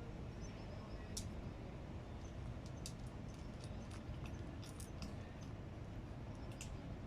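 A cat eating food, with irregular short, sharp clicks and crunches of chewing, over a steady low background rumble.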